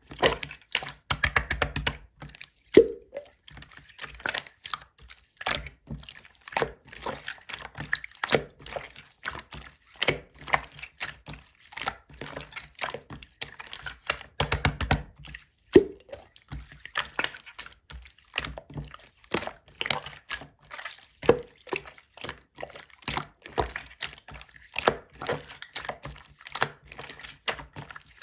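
Clear slime being worked by hand, giving an irregular stream of sticky clicks and small wet pops, with a few louder pops.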